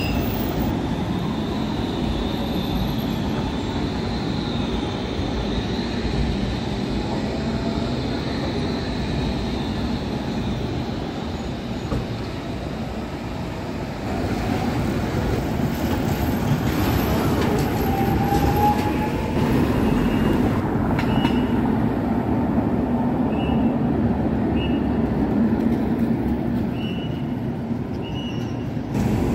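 Street trams running along the rails, a steady rumble of motors and steel wheels on track that gets louder about halfway through as a tram passes close. From about two-thirds of the way in, short high tones repeat roughly once a second.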